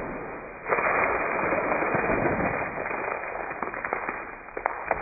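Water-filled chip bag hitting a wall and bursting, with water splashing and spattering, drawn out in slow motion: a sudden hit about a second in, then a long rushing spatter with a few sharp ticks near the end.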